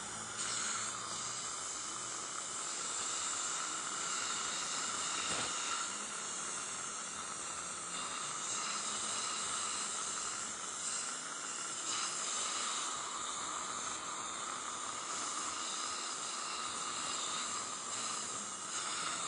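Steady, even hiss with no strokes or pitch changes, its energy in the upper range.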